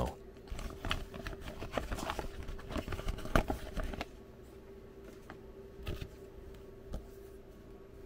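Clear plastic packaging crinkling and rustling as it is handled, with small clicks and taps, for about the first four seconds, then it goes quiet. A faint steady hum runs underneath.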